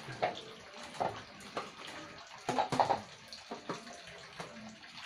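Water sloshing and splashing as plastic bottles are rinsed by hand in a basin, with irregular hollow knocks and clatter of the plastic bottles being handled; the loudest knocks come about two and a half seconds in.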